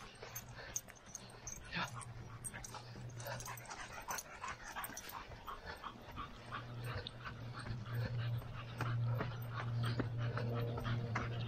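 Footfalls on a dirt trail at an easy running pace, about three a second, with panting breath. A steady low hum underneath grows louder from about halfway through.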